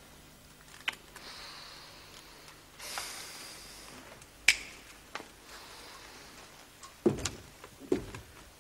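Scattered sharp clicks and knocks over a quiet room, with a brief rustle about three seconds in. The sharpest click comes about four and a half seconds in, and a few duller knocks follow near the end.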